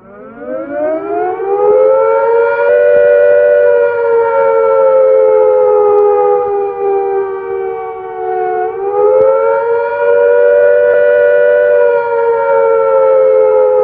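Air attack warning siren wailing: the pitch rises at the start, slowly falls, rises again about nine seconds in and falls once more, the warning to take cover at once.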